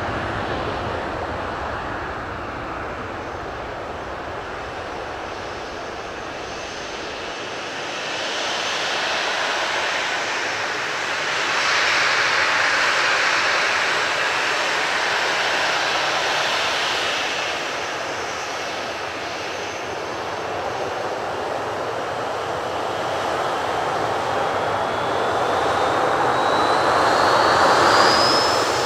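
Boeing 737-800's CFM56-7B turbofan engines running as the airliner rolls slowly onto the runway: a steady jet hiss and rumble that swells and eases, with a high whine rising in pitch near the end as the engines spool up.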